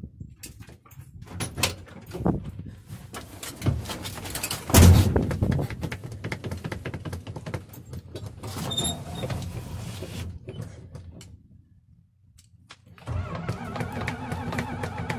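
Gasoline engine fuelled with diesel, cranked and stumbling while the throttle is pumped: irregular knocks and pops, the loudest a low thump about five seconds in. It nearly dies about twelve seconds in, then a steady even drone starts near the end.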